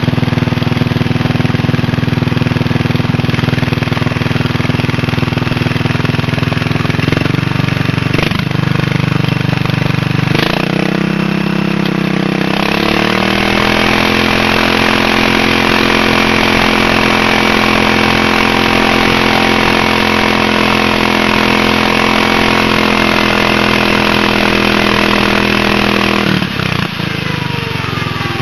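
Riding lawn mower engine running steadily. About ten seconds in it revs up and holds at a higher speed, then drops back near the end.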